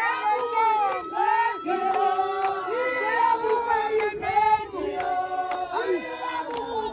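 A group of men and women singing a traditional Xhosa celebration song together, with hand claps keeping time.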